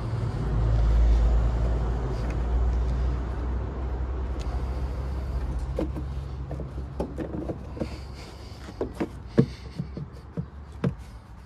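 A low vehicle engine rumble swells in the first second or so, then slowly fades. Sharp plastic clicks and knocks follow in the second half as the Renault Master's air filter box is fitted and closed over a new filter, with the loudest click about nine and a half seconds in.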